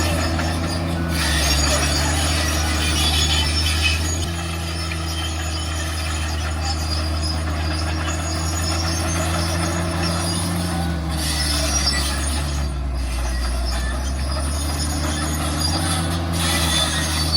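Dump truck's diesel engine running under load, with high squealing and rattling over its low drone; the engine note dips for a couple of seconds about twelve seconds in.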